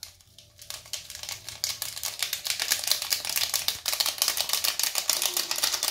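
Fine dry granules of a triops egg mix pouring from a cut packet into a small glass tank: a dense, rapid patter of grains landing, starting about half a second in.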